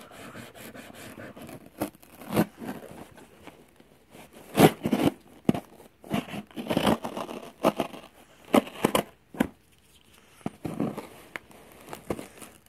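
Pocket knife slitting and scraping along the packing tape of a cardboard shipping box, with bursts of tape tearing and cardboard rubbing; the loudest strokes come about five, seven and nine seconds in.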